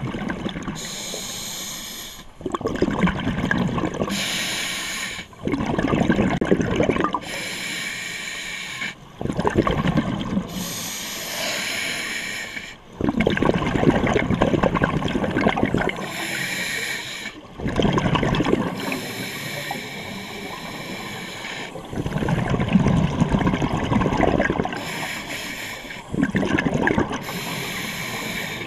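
Scuba diver breathing through a demand regulator underwater: a hissing inhale followed by a longer bubbling exhale, repeating about every three to four seconds, about eight breaths in all.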